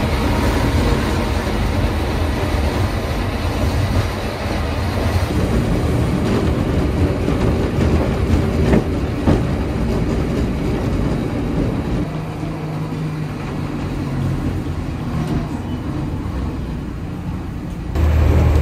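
Botchan Ressha, a diesel-powered replica of a steam locomotive, running along its tracks: a steady rumble of engine and wheels, with a couple of sharp knocks about nine seconds in.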